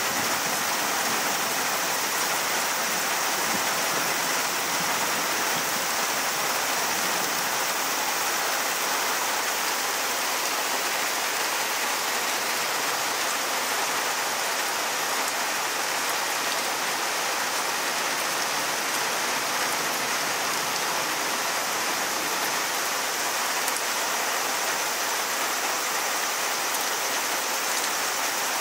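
Torrential rain falling steadily, an even, unbroken hiss.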